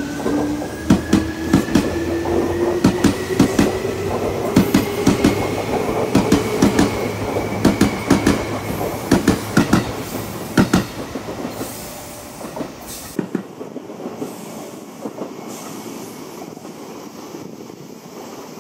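Seibu new 2000 series electric train pulling away, its whine rising in pitch as it gathers speed while the wheels clack over the rail joints again and again. About thirteen seconds in the sound drops to a quieter, steady train rumble.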